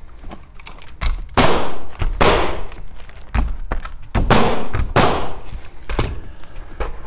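Pneumatic roofing nailer firing nails through an asphalt shingle: a series of sharp shots about one a second, each with a brief hiss after it.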